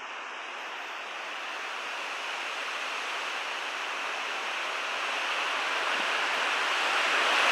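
Storm wind rushing, growing steadily louder.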